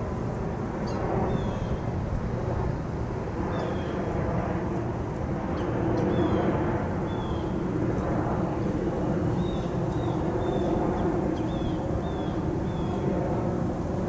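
Outdoor ambience: a steady low rumble with a small bird's short, falling chirps repeated every second or so, coming more often in the second half.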